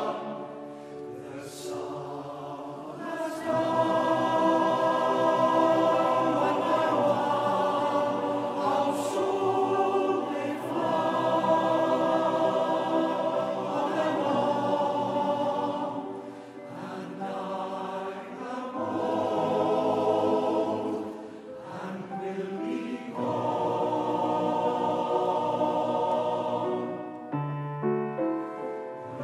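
Male voice choir singing in harmony: long held chords in phrases, the sound easing between phrases several times.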